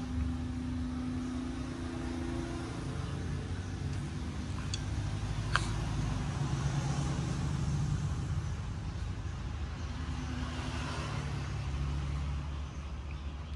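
Steady low motor rumble with a hum that shifts in pitch, and two sharp clicks about five seconds in.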